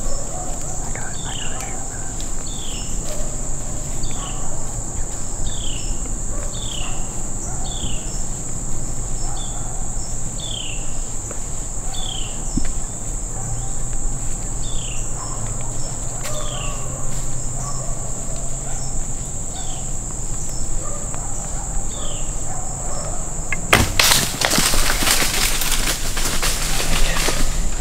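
Evening woods with a steady high insect drone of crickets or katydids and a short falling chirp repeated about once a second. About 24 seconds in, a sudden sharp snap and then about four seconds of loud crashing through brush and dry leaves: the recurve's shot and the 8-point whitetail buck bolting away.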